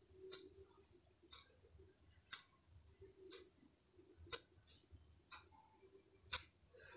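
Metal spatula scraping and tapping against a metal pan while thick fried masala paste is stirred: faint, separate clicks about once a second.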